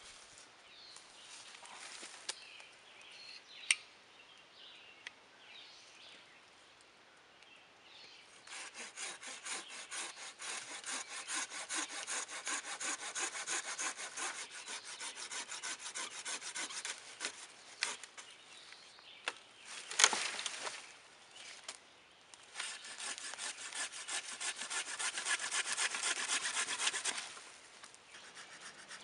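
Folding hand saw cutting through a dead branch: two spells of steady back-and-forth strokes, the first about nine seconds long and the second about five, with a single sharp crack between them.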